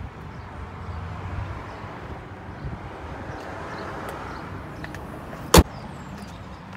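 Outdoor background noise with a low rumble, broken by a single sharp knock about five and a half seconds in.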